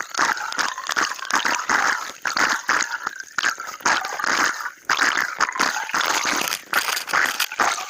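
Underwater sound of a scuba diver's exhaled bubbles gurgling in irregular surges, over a dense, constant crackle of clicks.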